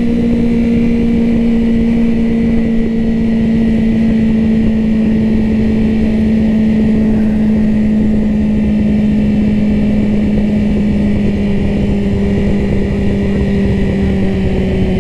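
Yamaha sport motorcycle engine running at a steady cruise, heard from on the bike. It holds one even note that sinks slowly in pitch as the bike eases off.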